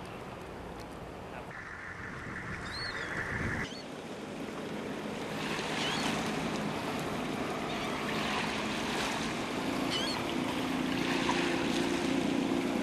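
Waterfront ambience: wind on the microphone and water lapping, with the low hum of a passing boat's motor and a few short high chirps. The sound shifts abruptly a little under four seconds in, and the motor hum is steadier and a bit louder in the last few seconds.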